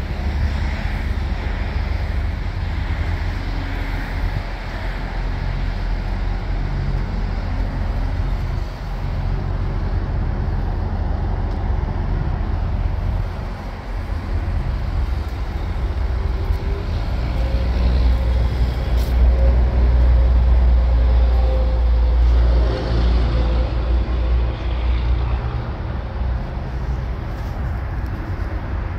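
Heavy diesel truck engine idling steadily, a low rumble that grows somewhat louder for a while in the second half.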